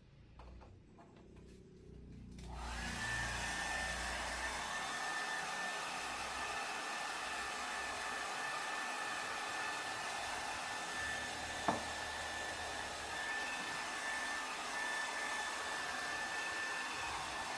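An electric hair dryer switching on about two and a half seconds in and running steadily with a high whine, with one sharp click near the middle.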